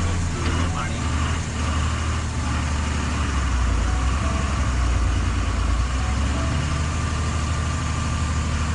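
Heavy vehicle's engine idling steadily, under a steady rushing noise.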